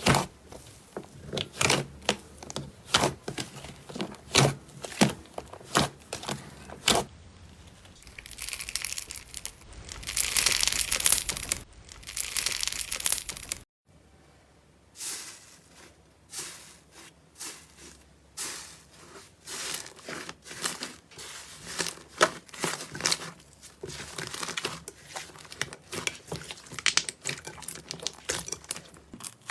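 Slime being squeezed, stretched and poked by hand: sticky clicks and crackles, first a regular pop about every half second, then a denser crackling stretch. About halfway through it cuts off suddenly, and a quieter run of irregular crackles and clicks follows.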